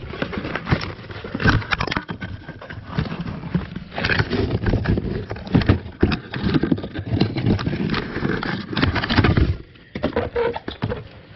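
Cardboard box rustling and scraping, with irregular knocks and clunks, as a new blower motor is handled and lifted out of it.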